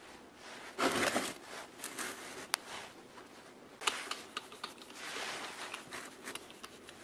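A screwdriver driving small screws into the sheet-metal bracket of an electric motor's capacitor cover. There is a loud scrape about a second in, then scattered sharp metal clicks and ticks as the screw is turned.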